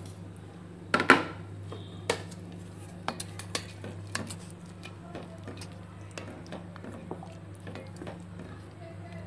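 Spatula stirring vermicelli in water in a stainless steel pot, with scattered knocks and scrapes against the pot, the loudest about a second in. A steady low hum runs underneath.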